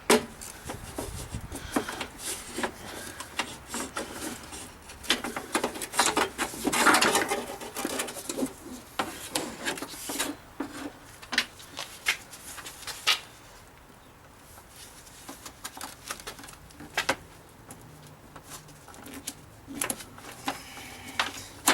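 Hood release cable on a Mercedes W123 being pulled out through the radiator support panel: irregular rubbing and scraping of the cable sliding through the panel, with scattered clicks and knocks, loudest about seven seconds in.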